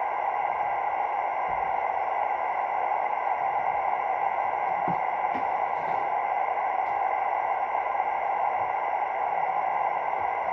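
Radio receiver static from a CB radio or scanner: a steady hiss with a few faint, unchanging tones running through it, and no voice coming through.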